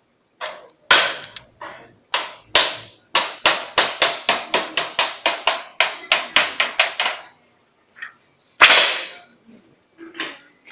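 Hammering on a galvanized steel sheet: about two dozen sharp blows that speed up to about five a second, then stop. A single loud blow follows about a second and a half later.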